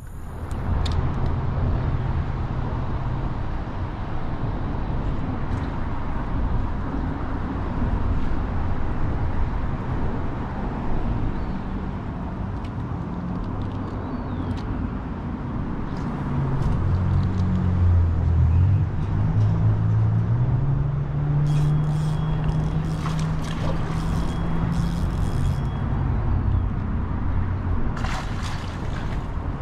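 Road traffic crossing a concrete highway bridge: a steady rumble of tyres and engines, with one vehicle's engine droning louder in the second half. A few sharp clicks come near the end.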